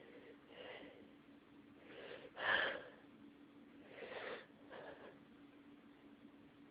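A person's breathing through a congested nose while a sneeze builds but won't come: several breathy inhales and exhales, with one short, louder breath about two and a half seconds in.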